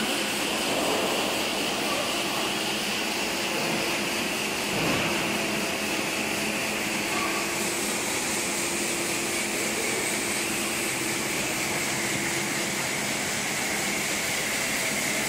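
Fryum snack pellet extrusion line running: a steady mechanical whir with a hiss, and a single short knock about five seconds in.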